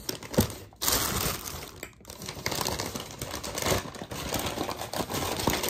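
Brown paper takeout bag rustling and crinkling irregularly as it is handled and opened.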